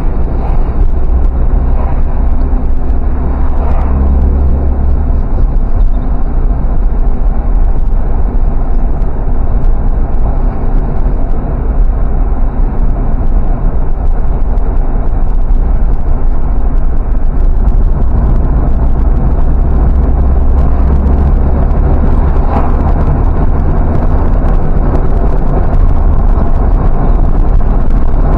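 A car being driven: steady engine and road noise with a heavy low rumble that swells a few times.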